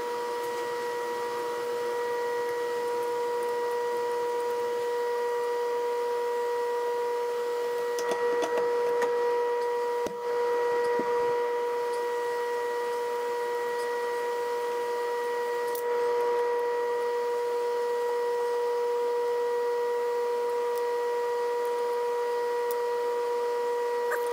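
Steady pitched machine hum from shop equipment, with a few clicks and knocks of metal tool parts being handled about a third of the way in.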